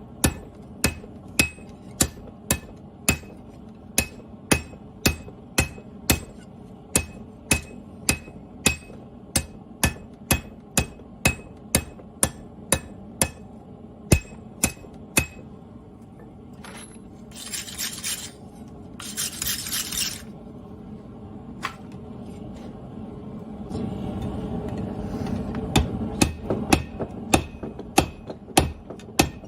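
Hand hammer beating a steel machete blank on an anvil, about two blows a second, each with a short metallic ring. Midway the hammering stops for two brief scraping hisses. A low rumble then rises and the blows pick up again near the end.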